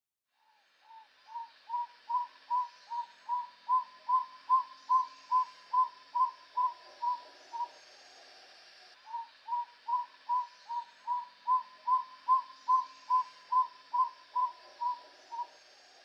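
Tody motmot singing: two series of short whistled notes, each note rising and falling in pitch, at about two or three a second. Each series swells louder and then eases off slightly at its end, with a pause of about a second and a half between the two.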